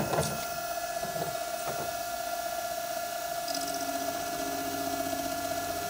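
CTV36 drill-milling machine running while milling a face of a workpiece clamped in the vise: a steady high whine, with a short knock at the start and a fast rattling added about three and a half seconds in.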